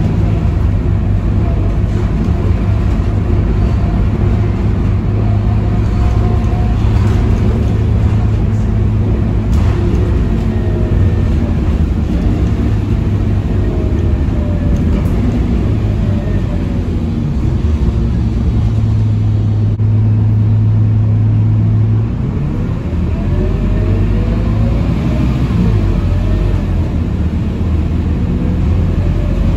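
Scania K230UB city bus heard from inside the passenger cabin while driving: a steady low engine drone mixed with road and tyre noise. About two-thirds of the way through, the engine note dips, then climbs again as the bus picks up speed.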